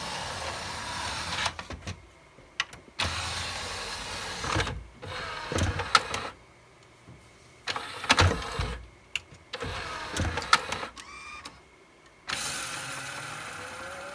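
Pioneer CLD-V850 laserdisc player spinning a disc on a worn spindle grip ring: a whooshing rush that comes and goes in four stretches of a second or two, with sharp mechanical clicks in the quieter gaps. The whoosh is the sign of a grip ring going out, which wants cleaning and usually replacing.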